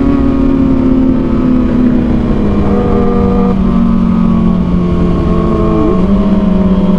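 Kawasaki ZX-6R inline-four motorcycle engine running under way, its pitch holding steady and easing slowly lower, with a brief rise in revs near the end.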